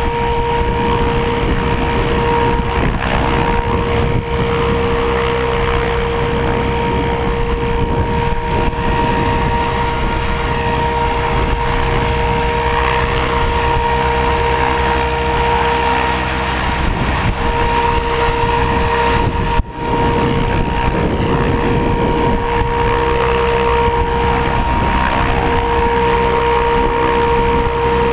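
Goblin 700 electric RC helicopter in flight: a steady high whine from the motor and drivetrain over rotor noise, with wind buffeting the microphone. The sound dips briefly about two-thirds of the way through.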